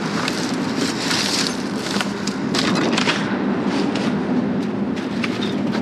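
Irregular clicks and knocks of objects being handled and bumped together while rummaging through trash, over a steady low hum.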